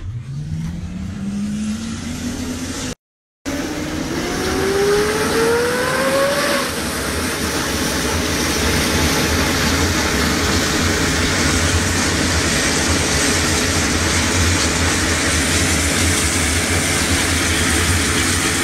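Mi-17-type helicopter's turbine engines starting up: a whine rising steadily in pitch over the first six seconds or so, then the steady noise of the engines and turning rotor. The sound cuts out for a split second about three seconds in.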